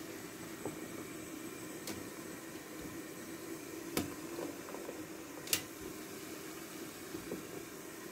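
Steady low noise of an aluminium steamer pot heating on the stove. A few sharp taps and knocks come as the woven bamboo rice basket is set into the pot, the loudest about five and a half seconds in.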